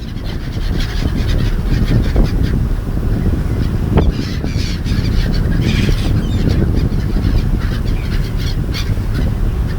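Seagulls calling, many short cries scattered through, over a steady low rumble.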